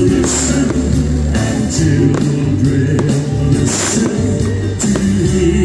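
Band music with a steady bass line, sharp percussion hits and singing.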